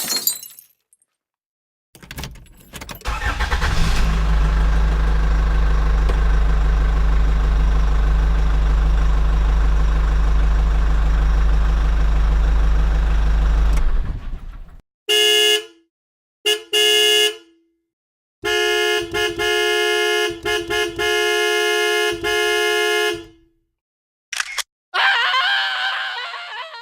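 A sequence of sound effects: a steady low rumble lasting about twelve seconds, then a car horn honking, two short honks followed by a long run of honks, and a brief falling sound at the very end.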